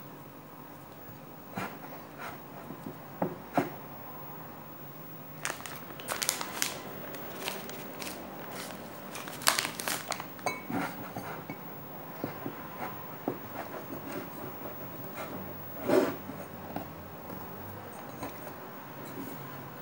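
Hands kneading and squeezing sticky glutinous rice-flour dough in a glass bowl: irregular soft squishes and rustles with light knocks against the bowl, and one louder knock about sixteen seconds in.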